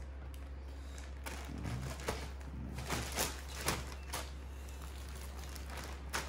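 Knife knocking against a cutting board as raw chicken is cut up: about seven sharp, irregular knocks, over a steady low electrical hum.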